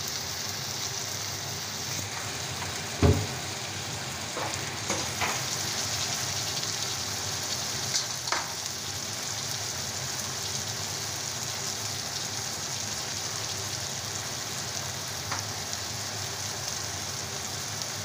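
Chopped onions, tomatoes and green chillies frying in oil in a kadhai, a steady sizzle. A few knocks and clicks of utensils against the pan break through it, the loudest a single knock about three seconds in.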